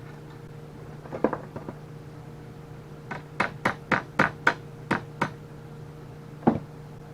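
Knocks driving the rake's metal bar about a quarter inch further into its wooden handle: a few light knocks, then a quick run of about eight sharper strikes, and one last knock near the end.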